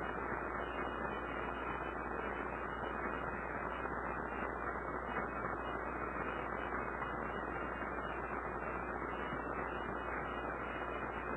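Steady background hiss with a low hum underneath, unchanging throughout, with no distinct events.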